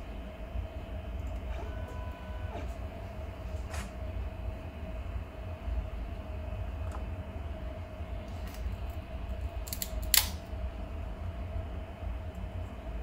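3D printer's fans running with a steady hum over a low rumble, with a few light clicks and a short faint tone about two seconds in. About ten seconds in there is a sharp snap as the finished PLA print comes free of the glass bed.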